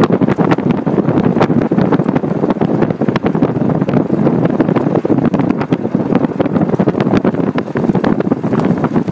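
Wind buffeting a microphone mounted on the outside of a moving Mitsubishi Delica D5, mixed with tire noise on a rough lane, with many small ticks throughout.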